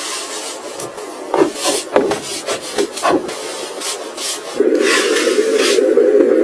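Wood being scraped and rubbed by hand: a run of uneven strokes, then steadier, louder rubbing from about two-thirds in.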